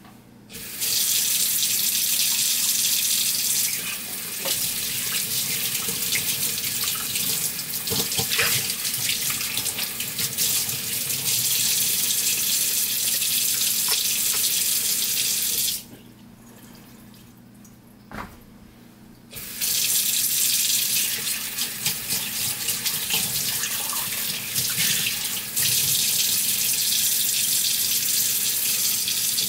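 Kitchen faucet running into a stainless steel sink while small metal parts are rinsed under the stream, with a few light clinks. The water is shut off about halfway through and turned back on a few seconds later, with a single click in the pause.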